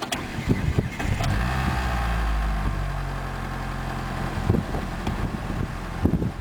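Mitsubishi 4G63 four-cylinder engine starting about a second in and then running at a raised idle, with a few sharp knocks along the way. The noise in it came from a bad timing belt tensioner.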